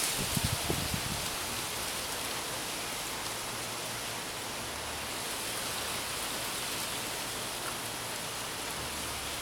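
Heavy thunderstorm rain falling steadily, a continuous hiss, with a brief low rumble about half a second in.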